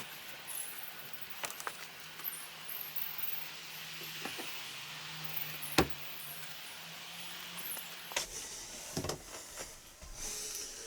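Scattered clicks, knocks and rattles of belongings being handled and stowed in a motorhome, with one sharp knock about six seconds in and a faint steady hum underneath.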